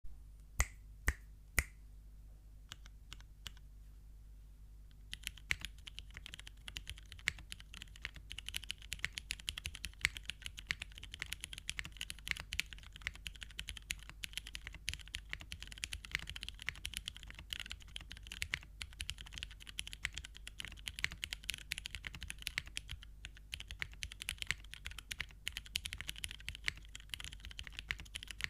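Geonworks F2-60 custom mechanical keyboard with lubed Cherry MX Brown tactile switches on an aluminium plate and GMK keycaps, typed on: a few loud single key presses in the first two seconds, a few softer ones, then from about five seconds in steady fast typing.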